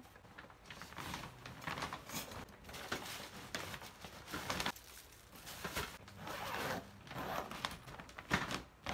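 A series of irregular rustling and scraping strokes, several close together at times, with short pauses between.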